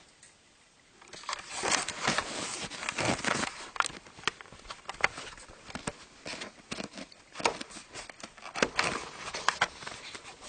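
Handling noise from a handheld camera being turned and moved: irregular clicks and rustling, starting about a second in.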